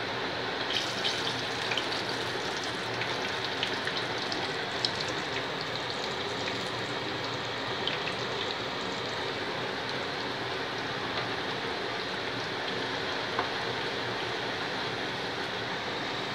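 Chirotti (rolled maida-dough rounds) deep-frying in hot oil in a steel kadai: a steady sizzle, with scattered small crackles mostly in the first half.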